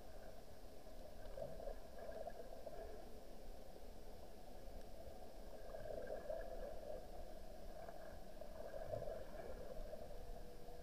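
Muffled underwater ambience picked up by a submerged camera: a steady low hiss with a few soft, irregular swells of water noise.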